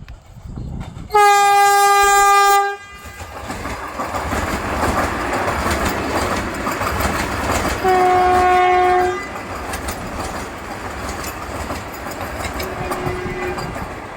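A passing train sounds its horn twice, each blast about a second and a half long, with a short faint third blast near the end. Between the blasts its wheels clatter steadily over the rails.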